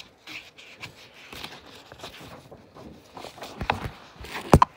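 A phone being handled close to its microphone: irregular rubbing and scraping with scattered light clicks, and two sharper knocks near the end.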